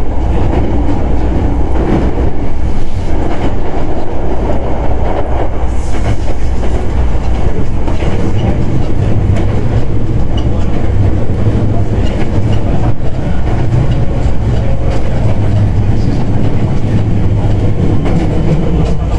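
Hankyu 9300 series electric train running at steady speed, heard on board: a steady low rumble of wheels on rail with clickety-clack from the rail joints.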